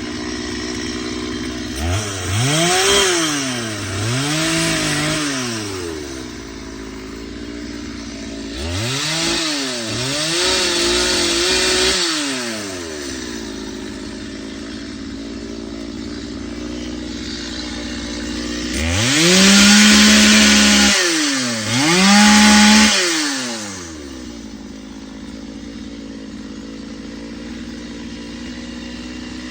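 Two-stroke chainsaw idling between three bursts of full throttle. In each burst the engine speed climbs and drops twice. The last burst, about two-thirds of the way through, is the loudest.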